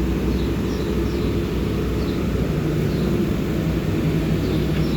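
Steady drone of an engine running on a construction site, a low hum with a pitched tone that settles and strengthens about two and a half seconds in. A few faint short high chirps sound above it.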